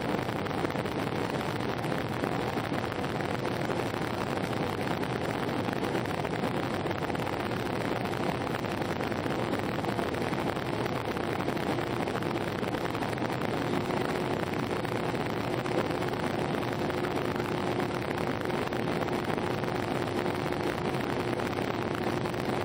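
Steady rushing cabin noise of an Airbus A319 airliner in flight on approach, heard from inside the passenger cabin: airflow and engine hum. A faint steady hum tone comes in a few seconds in and shifts slightly in pitch about halfway through.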